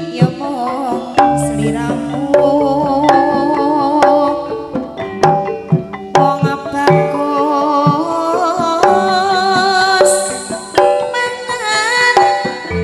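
Live campursari music: Javanese kendang hand-drum strokes under a wavering, vibrato-laden melody line with a female singer.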